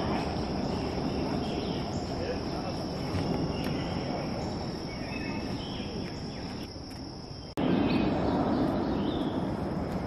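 Insects trilling steadily in one unbroken high tone over a steady rushing background, with a few faint bird chirps. The whole sound jumps abruptly louder about seven and a half seconds in.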